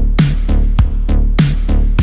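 Background electronic dance music with a steady fast beat over a heavy bass line.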